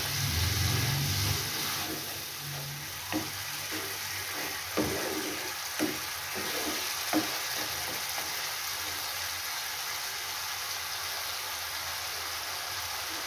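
Masala paste of tomato and ground spices, loosened with a little water, sizzling over a medium flame in a non-stick frying pan while a spoon stirs and scrapes through it. There are a few sharp knocks of the spoon against the pan in the first half, then only the steady sizzle.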